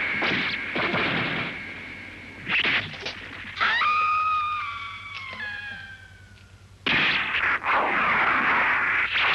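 Monster-battle sound effects: a few sharp hits, then a shrill screeching cry that slowly falls in pitch, then about two-thirds of the way through a sudden loud rushing blast.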